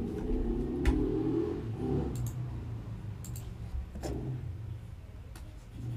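A handful of light, scattered clicks and taps, as from a pen or mouse working on a desk, over a low steady hum.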